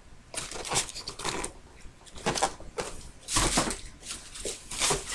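Paper rustling and crinkling in irregular bursts as a sneaker is unwrapped from its shoe box.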